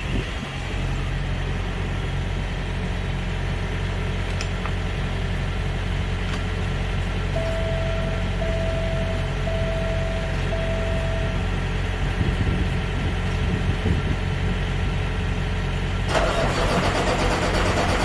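N14 Cummins diesel truck engine running steadily on its first start after a fuel pump replacement, having fired up after a couple of turns. Four short beeps sound in the middle, and a loud hiss comes in near the end.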